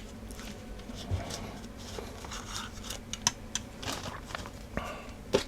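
Faint, scattered clicks and brief scraping as the remains of a torn ear pad are peeled and picked off a Denon AH-D7100 headphone's ear cup by hand.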